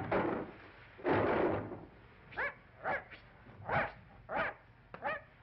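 Two short bursts of noise, then a cartoon puppy yipping in a string of short, high yelps, about seven in all.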